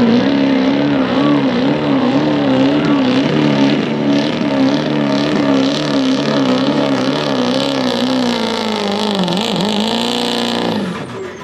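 Ford diesel pickup truck's engine running at full throttle while pulling a weight sled, its pitch wavering up and down about twice a second as the truck bogs under the load. Near the end the revs sag and then fall away sharply as the truck comes to a stop at the end of its pull.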